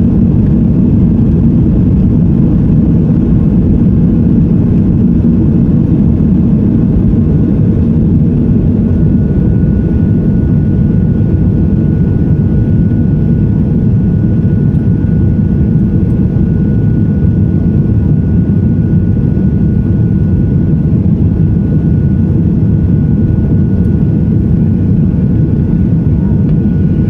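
Cabin noise of a Boeing 737-800 taking off: its CFM56-7B jet engines at takeoff thrust, a loud steady low rumble through the takeoff roll, lift-off and initial climb. A thin steady whine joins about nine seconds in.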